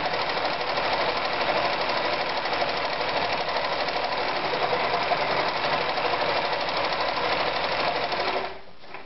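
Privileg Super Automatik 5021 electric sewing machine running steadily at speed, stitching a zigzag seam. It stops suddenly near the end.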